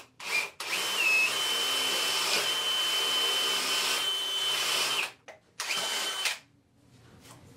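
Power drill boring a hole down into a thick wooden workbench top. A short blip is followed by a steady whining run of about four and a half seconds, then one more short burst.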